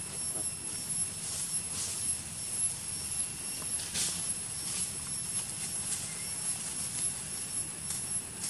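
Steady outdoor background noise: a low rumble with two faint, high, steady tones above it, and a brief soft rustle about four seconds in.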